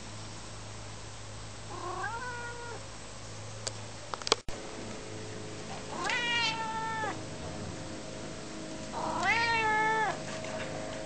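Domestic cat meowing three times, each meow a drawn-out call of about a second, the first one fainter. A few sharp clicks come between the first and second meows.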